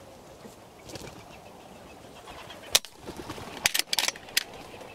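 Wood pigeon's wings clapping as it flies in: one sharp clap a little before three seconds in, then a quick run of sharp claps around four seconds.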